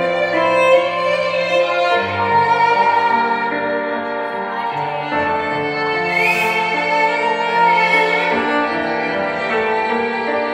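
Slow instrumental music led by a violin, with held notes and a low bass line that moves to a new note every two to three seconds.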